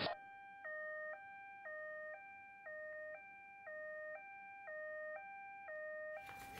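Two-tone hi-lo ambulance siren, alternating evenly between a high and a low note about twice a second, faint and steady.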